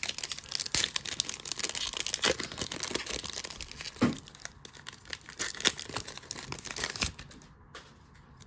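Foil wrapper of a 2023 Donruss football card pack being torn open and crinkled by hand: a dense run of crackles and sharp rips that stops about seven seconds in.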